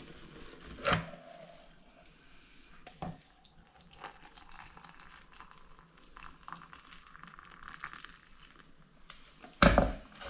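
Hot water poured from an electric kettle into a mug over a teabag, a soft trickle, with a knock about a second in and a louder knock near the end as the kettle is handled and set back on its base.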